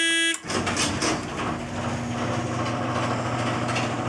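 A short electronic beep, then an electric garage door opener starts and runs with a steady motor hum and drone as the door closes.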